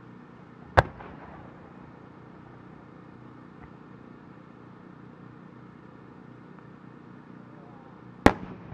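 An aerial firework shell: a sharp boom about a second in as it is fired from its mortar, then a second sharp boom with a trailing echo near the end as it bursts high in the air.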